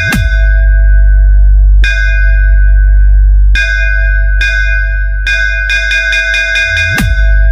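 Bass-test DJ dance track: a heavy, continuous sub-bass under a ringing bell-like synth chord struck about every second and a half. A fast roll of hits builds into a diving bass sweep at the start, and again near the end.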